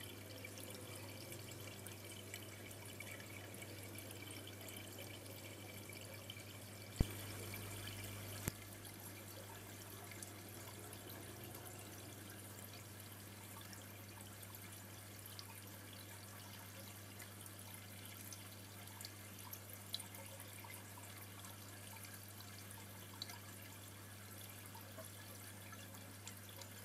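Faint aquarium water trickling and dripping over a steady low hum. A sharp click about seven seconds in, and a softer one a second and a half later.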